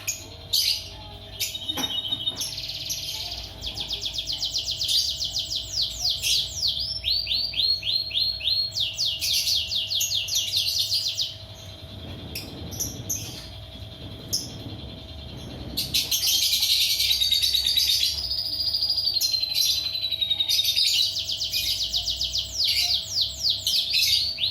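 Lovebird in long chattering song (ngekek): runs of rapid, evenly repeated high chirps. The song breaks off for a few seconds near the middle, then resumes.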